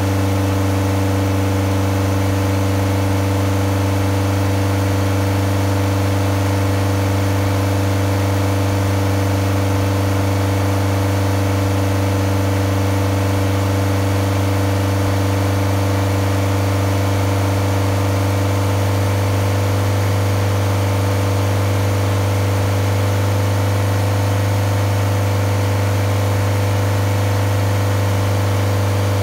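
BMW 318ti four-cylinder engine running at a steady raised speed, its note unchanging. The upstream oxygen sensor is out, so exhaust escapes from the open sensor port ahead of the catalytic converter, which makes the engine sound louder.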